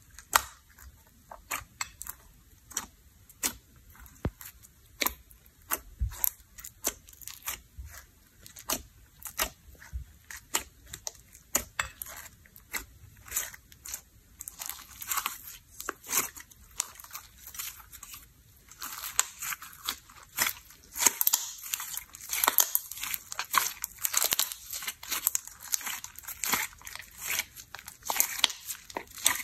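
Slime being kneaded and squeezed by hand, giving sharp, irregular clicks and pops as air pockets burst. From about two-thirds of the way through, these turn into a denser, continuous crackling.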